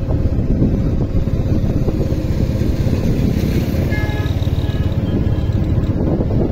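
Motorbike riding along a street: a steady engine and road rumble heard from on the bike, with brief faint high tones about four seconds in.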